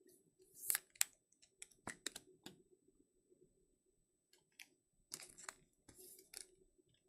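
Trading cards and their packaging being handled: irregular sharp clicks and short crinkling rustles, loudest about a second in and in a cluster near the end, over a faint steady hum.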